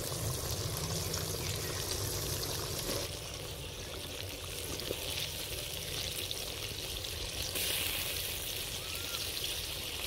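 Watery masala gravy simmering in a kadhai as chicken kofta balls go in, a steady bubbling hiss with a low hum under it.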